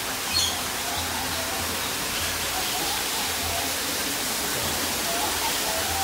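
A steady rushing hiss with faint bird calls, and one short high chirp about half a second in.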